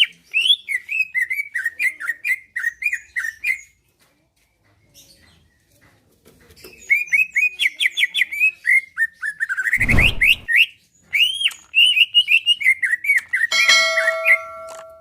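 Green leafbird (cucak ijo) singing: fast runs of chirping, whistled notes with a pause of about three seconds after the first phrase. Around ten seconds in there is a short low rustle or thump, and near the end some held steady tones sound under the song.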